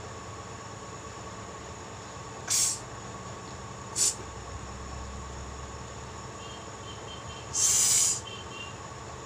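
Steady background hiss with a faint electrical hum, broken by three short hissing sounds: one about two and a half seconds in, a brief one at four seconds, and a longer one of about half a second near the end.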